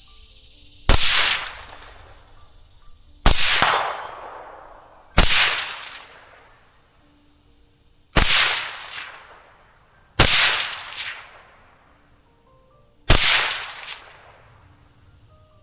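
Six suppressed rifle shots from a 12.5-inch AR fitted with an Otter Creek Labs Polonium full-size suppressor, firing 55-grain rounds, spaced two to three seconds apart. Each is a sharp report whose tail fades over about a second.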